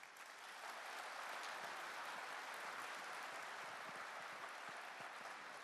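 Large audience applauding, a dense patter of many hands that starts all at once and tapers off near the end.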